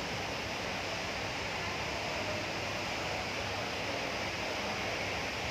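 Steady wash of indoor ambient noise, the background hum of a busy shopping area, with no clear voices standing out. It cuts off abruptly at the end.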